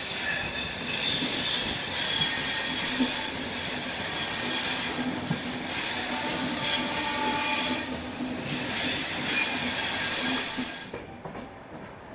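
Steel wheels of a passenger train's coaches squealing against the rails as the train rounds a curve: a loud, shrill squeal of several wavering high tones. It cuts off sharply about a second before the end, leaving a quieter running rumble.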